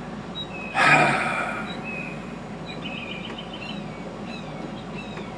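A man's breathy exhale, like a sigh, about a second in, with faint songbird chirps and short falling whistles around it.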